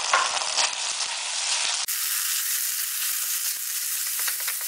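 Chopped vegetables sizzling in a non-stick pan with sauces and salt just added, as a silicone spatula stirs them with short scraping strokes.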